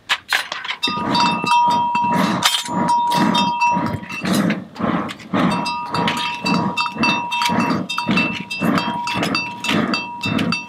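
Blacksmith's hammer beating in a steady rhythm on an iron anvil, about two blows a second, with a sustained metallic ring.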